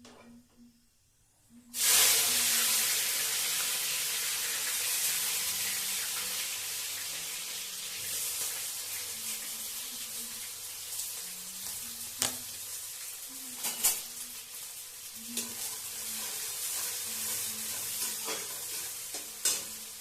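Food dropped into hot oil in a pan starts sizzling loudly all at once about two seconds in, then keeps sizzling and slowly dies down as it cooks. A few sharp clicks of a spoon stirring against the pan come in the second half.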